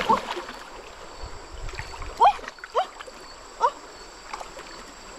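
Hands splashing and sloshing in shallow muddy water while groping for fish, over the steady run of a stream. Midway there are three short rising calls, one after another.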